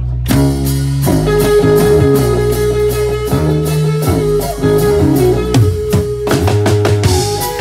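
A live band playing loud music on drum kit and electric guitar, with the drums striking regularly under sustained guitar notes.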